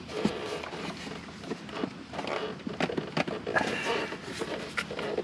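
Hard plastic motorcycle fairing panel being pulled and worked loose by hand: irregular clicks, knocks and rubbing of plastic on plastic.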